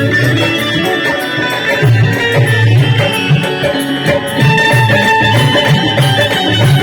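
Loud recorded music with a heavy bass beat played through a PA sound system for a sound check.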